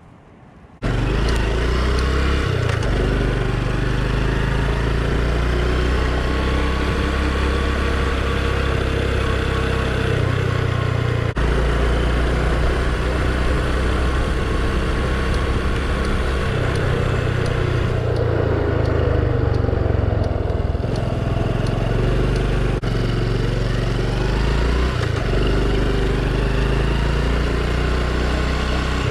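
Honda Super Cub's small single-cylinder four-stroke engine running on the move, starting abruptly about a second in, with its note shifting up and down every few seconds as the speed changes.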